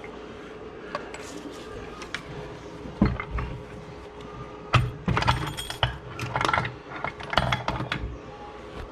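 Suzuki LTZ400 engine crankcase being struck to split it apart: one sharp knock about three seconds in, then a run of knocks with metal clinking and rattling from about five to eight seconds in.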